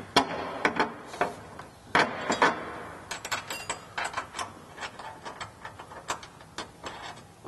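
Irregular metallic clicks and knocks of bolt, nut and washer hardware being handled and threaded by hand against an underbody skid plate. The louder knocks come near the start and about two seconds in.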